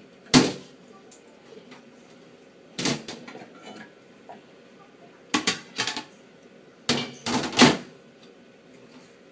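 Bowls and a strainer knocking and clattering against a stainless-steel sink during rice washing, in separate bursts: one knock near the start, another about three seconds in, then clusters of clunks in the last four seconds.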